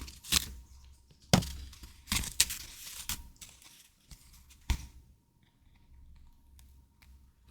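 Paper and plastic stationery packaging being handled: a run of sharp crinkling and tearing sounds over the first five seconds or so, then only faint handling.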